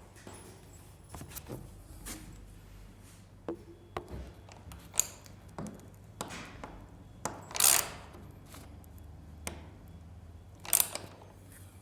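Scattered light knocks and clicks at uneven intervals, the two loudest about two-thirds of the way through and near the end.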